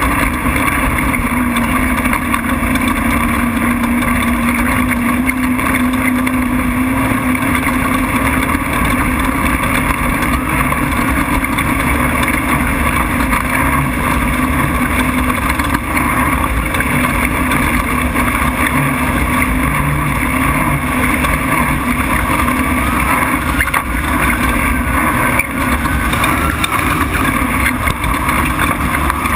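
Off-road race truck's engine running hard at a steady drone, mixed with road and wind noise, heard from a camera mounted on the hood.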